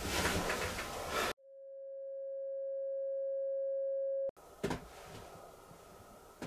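A steady pure electronic tone that swells in over about three seconds and cuts off abruptly: an edited-in transition sound effect over a black title card. Before it, a moment of rustling handling noise; after it, quiet room tone with a short click.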